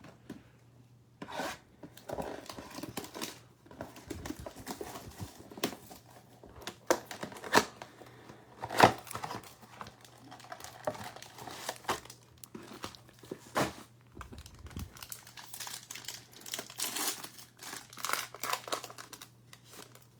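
A Select football trading-card pack's wrapper being torn open and crinkled in irregular crackly bursts, with a few sharper snaps.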